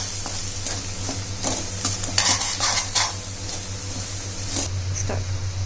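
A metal spoon stirs and scrapes potatoes, onions and spices being fried in oil in a steel kadai. Repeated scrapes against the pan sound over a steady sizzle, which cuts off near the end.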